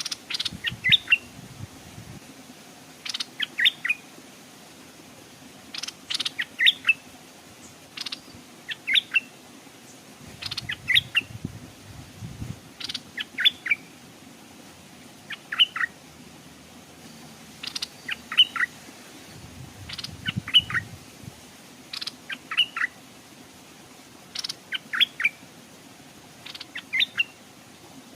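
Stripe-throated bulbul singing: a short, quick phrase of bright notes repeated about every two seconds, each led by a sharp tick.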